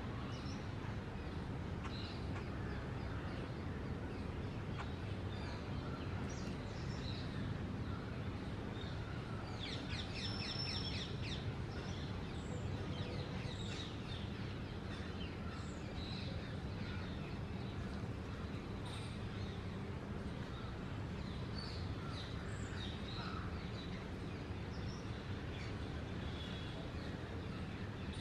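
Birds chirping and calling sporadically over a steady low background rumble, with a short burst of rapid chattering about ten seconds in.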